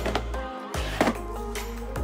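Background music with a steady bass line and held chords, and one sharp knock about a second in.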